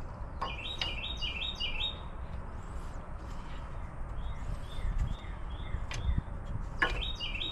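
A small songbird chirping in runs of short, repeated high notes, quick at first, then a slower run in the middle and another starting near the end. A few faint clicks and a low steady rumble lie beneath.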